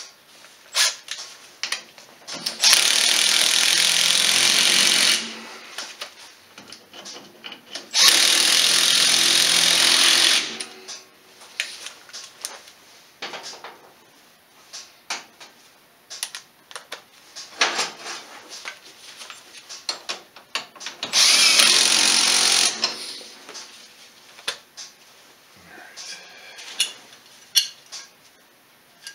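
Cordless power driver running bolts in on an ATV's rear hub knuckle: three steady runs, the first two of about two and a half seconds and a shorter one near the end. Between them, clinks and clanks of metal parts and hand tools.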